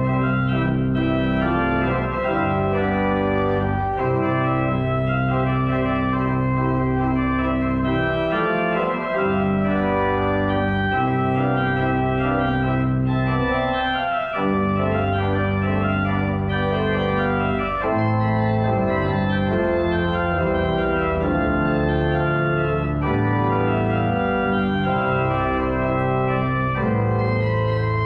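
Organ playing the postlude after the benediction: held chords with a strong bass, changing every second or few.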